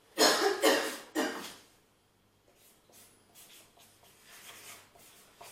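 Pen writing on paper sheets: three short scratchy strokes in the first second and a half, then fainter, scattered scratching.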